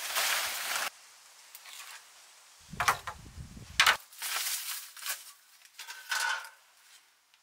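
Dry leaves rustling and crackling as they are scooped by hand into a plastic bucket, with a couple of sharp knocks, then a hand broom brushing across the dirt.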